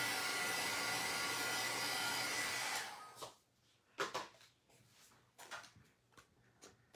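Handheld craft heat tool blowing steadily with a faint whine while drying a damp ink panel, then switched off about three seconds in. A few light taps and rustles of cardstock follow as the panel is handled.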